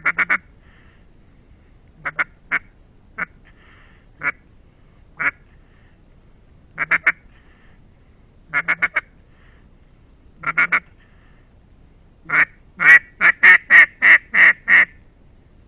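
A Russian Custom Calls duck call blown in quacks: short single quacks and clusters of two to four, then a run of about eight louder quacks near the end, to lure passing ducks.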